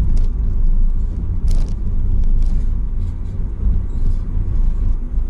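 Steady low rumble of a car's engine and tyres, heard from inside the cabin while driving along a street, with a few light clicks.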